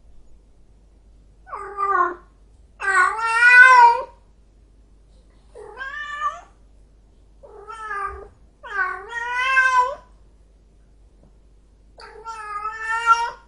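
Angry domestic cat meowing and yowling: six drawn-out calls with a wavering pitch, spaced one to two seconds apart, the second and fifth the longest at about a second each.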